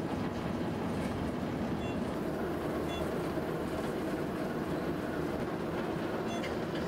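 Steady running noise of a locomotive under way, heard from inside the driver's cab.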